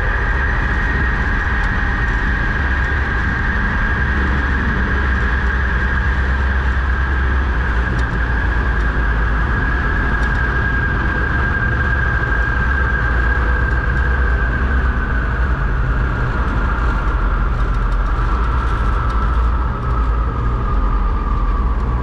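Cable car cabin running along its ropeway, heard from inside the cabin: a steady low rumble with a high mechanical whine over it. The whine slides slowly lower in pitch over the last several seconds as the cabin descends toward the ground.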